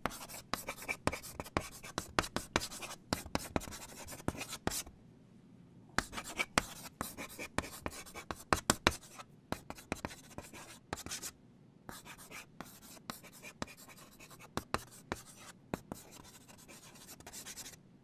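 Chalk writing on a blackboard: quick taps and scratches in three bouts with short pauses between.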